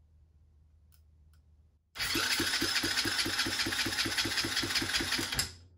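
Electric starter cranking a Chinese 125cc ATV four-stroke engine over for about three and a half seconds, starting about two seconds in, with an even pulse about five times a second. A compression gauge sits in the spark plug hole, so the engine turns but does not fire. It is a compression test of the freshly rebuilt cylinder head, which reads about 155 psi.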